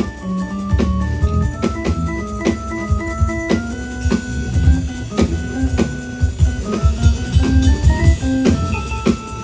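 Instrumental music: a melody of short held notes moving up and down over quick drum beats.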